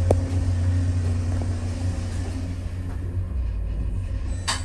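Steady low machinery rumble inside a small elevator aboard a car ferry, with a brief sharp noise near the end.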